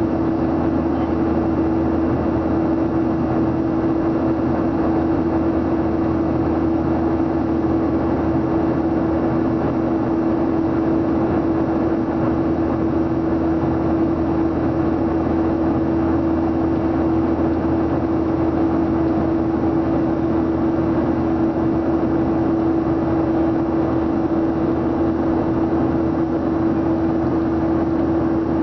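Airliner cabin noise in flight: the steady rush of air and jet engine drone heard from inside the cabin, with one constant low hum over it.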